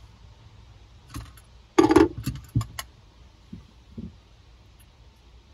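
Metal hand tools clattering and clinking: one loud jangling burst about two seconds in, followed by several sharp clicks and a couple of softer knocks.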